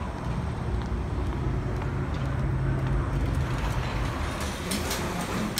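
A motor vehicle's engine running with a steady low rumble and hum, with a few light clicks near the end.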